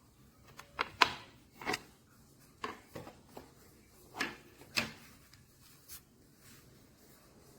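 Precision screwdriver parts and bits from a toolkit being handled: irregular light clicks and knocks, about nine over six seconds, the sharpest about a second in.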